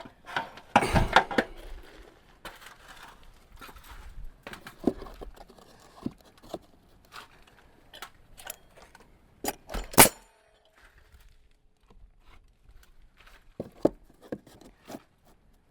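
Scattered knocks, taps and clatter of someone climbing up and handling cut pieces of wooden clapboard siding, with one sharp, loud knock about ten seconds in.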